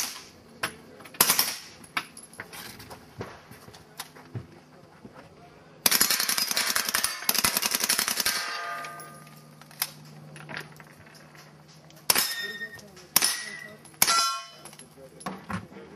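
Gunfire on steel targets. A couple of single shots come first, then a long rapid burst of about two and a half seconds starting about six seconds in, followed by three spaced shots near the end. The hit steel plates clang and ring after the shots.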